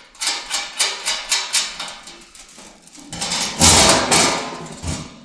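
Background music with a steady percussive beat, swelling louder about three seconds in.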